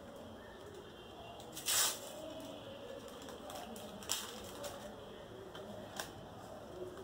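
Paper sticker packet being torn open and the stickers handled: a short loud rip about two seconds in, then sharp crinkling snaps near four and six seconds, with soft rustling between.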